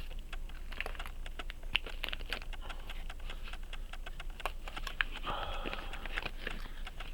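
Pocket watches and small items being handled and put away: a stream of light, irregular clicks and taps, with a brief rustle about five seconds in.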